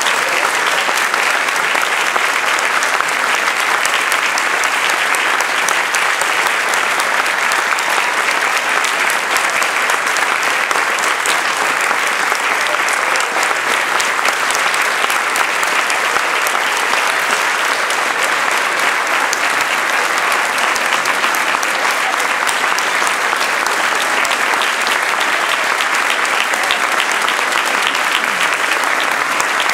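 Large audience clapping steadily in a sustained standing ovation.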